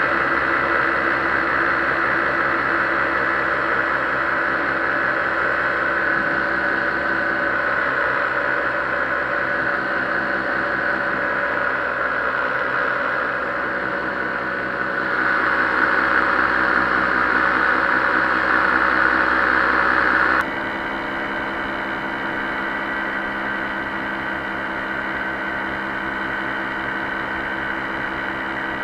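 Paramotor's two-stroke engine and propeller running steadily in flight, mixed with a rushing wind noise. About twenty seconds in, the sound drops suddenly in level and changes in tone.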